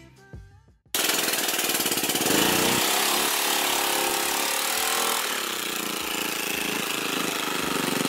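Background music fades out, then about a second in a go-kart's small petrol engine cuts in loud and close, running with a rapid rattling beat, its pitch rising and falling as it is revved.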